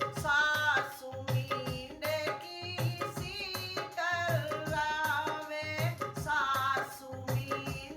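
A woman singing an Indian folk song, holding wavering notes, over a steady rhythm on a hand drum with sharp, regular drum strokes.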